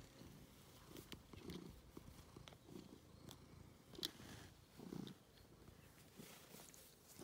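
Domestic tabby cat purring softly while being stroked, the purr swelling in low pulses about once a second with each breath. A few faint clicks, the sharpest about four seconds in.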